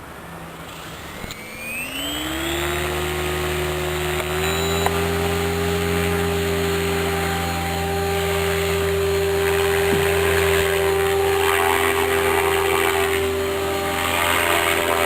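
MSH Protos electric RC helicopter spooling up: the motor and gear whine rises in pitch over about two seconds, then holds a steady pitch with a small step up a couple of seconds later.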